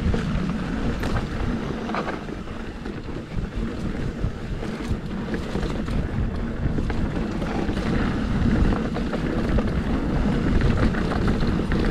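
Mountain bike descending rough dirt singletrack at speed: tyre rumble and rattling with scattered sharp knocks over rocks, under steady wind noise on the microphone.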